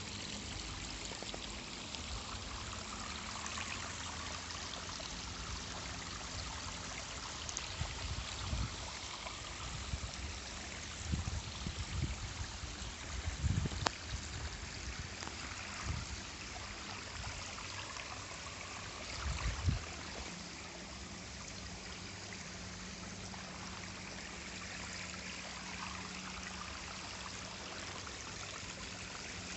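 Water of an artificial garden waterfall splashing and trickling steadily into its pool, with a few low thumps in the middle.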